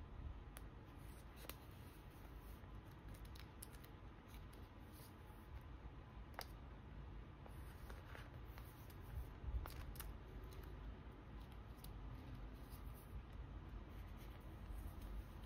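Faint crinkling and rustling of clear plastic photocard sleeves and binder pocket pages as sleeved photocards are handled and slid into the pockets, with scattered small clicks and taps over a low steady rumble.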